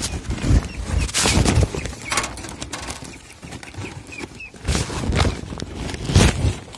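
Woven plastic sack being handled and shifted: irregular rustling and crinkling, with several louder scrapes.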